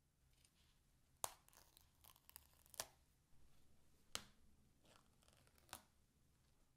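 Paper tear strip being ripped off the seal of an iPhone 13 mini retail box: quiet crackly tearing broken by four sharp snaps, about one every second and a half.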